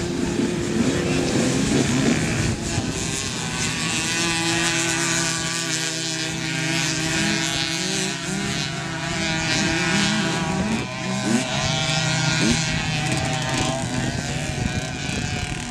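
Several youth 90cc quad engines and a small dirt bike engine running hard together while racing, a steady buzzing drone with the pitch swooping up and down as the riders work the throttle.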